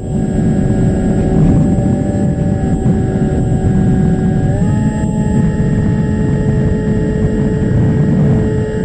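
Onboard audio of an FPV flying wing in flight: wind rushing over the camera's microphone, with the electric motor and propeller whining steadily. The whine steps up in pitch about four and a half seconds in.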